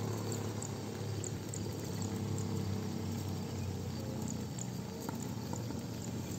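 Countryside ambience: a steady low hum under faint, repeated high-pitched insect chirps.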